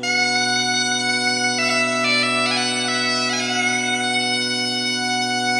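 Bagpipe chanter enters suddenly over a steady low drone, playing a quick run of notes that dips and turns, then settling on one long held note.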